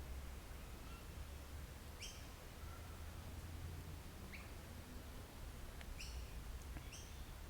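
Wild birds calling: about four short, high, upward-sweeping chirps a second or two apart, over a faint steady low rumble.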